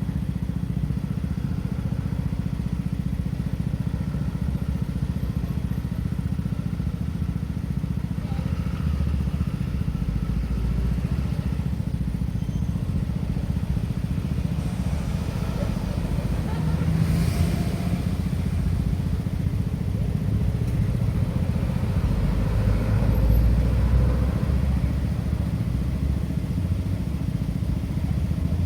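Road traffic at an intersection: a steady low rumble, with vehicles passing, including a brief hiss about two thirds of the way in and a louder low swell near the end.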